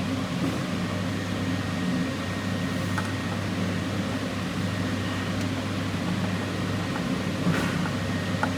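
Steady low mechanical hum from a running machine such as a fan or air-conditioning unit, with a few faint light clicks.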